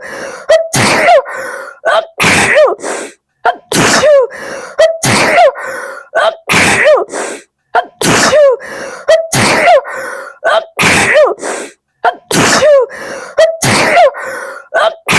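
A woman sneezing over and over in a sneezing fit, about one sneeze every second and a half. Each is a sharp voiced 'achoo' with a quick intake of breath between.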